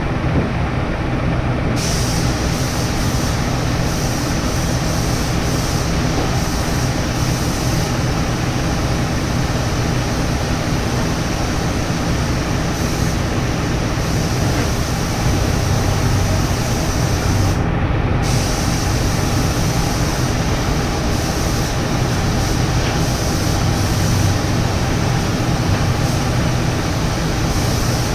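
Paint spray gun hissing steadily over a low, steady machine hum. The hiss comes on about two seconds in and cuts out briefly about eighteen seconds in as the trigger is released.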